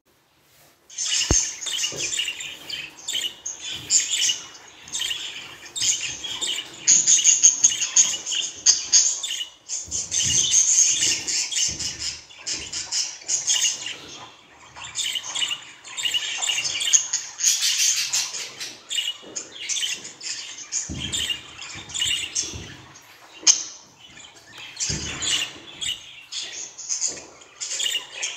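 Budgerigar warbling: a continuous stream of fast chirps and chatter, starting about a second in.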